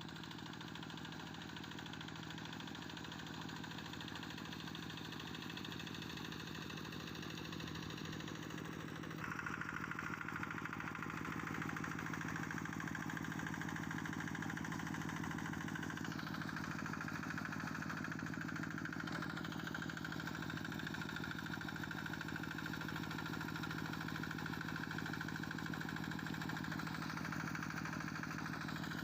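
Diesel engine of a Quick G1000 two-wheel paddy tractor running steadily, a little louder from about nine seconds in.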